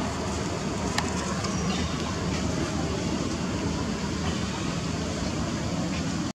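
Steady outdoor background noise, heaviest in the low range, with one sharp click about a second in.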